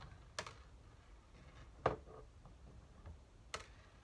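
Three sharp clicks and taps, spaced a second or more apart, from the hard plastic body of a Nerf blaster being handled; the middle one is the loudest.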